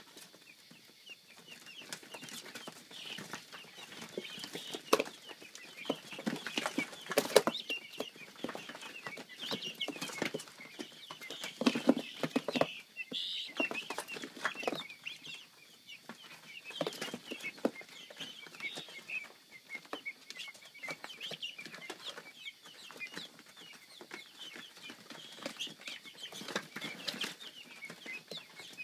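A cage of four-week-old guinea fowl keets calling continuously with many short, high chirps, broken by occasional sharp knocks and scuffles.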